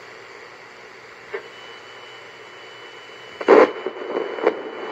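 Sanyo clock radio hissing with FM static as its tuning dial is turned between stations, with a thin steady whistle behind it. There is a faint click about a second in and a short, loud crackle about three and a half seconds in, then another click.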